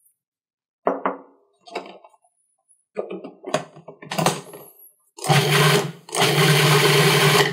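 Plastic clatter and clicks as the lid is fitted onto a Cuisinart 14-cup food processor, then its motor pulsed twice, a short burst and a longer one with a brief gap between, whirring through the chimichurri to mix in the added salt.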